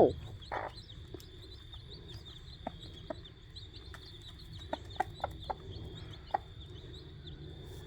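Mother hen clucking in short, scattered calls to her newly hatched chicks over food, with the chicks peeping thinly and steadily.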